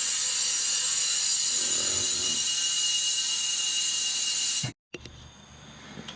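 Compressed air hissing steadily into a tubeless ATV tire through an air chuck, inflating it so it is rigid enough to take the plug; it cuts off suddenly a little over four seconds in, followed by faint small clicks and knocks.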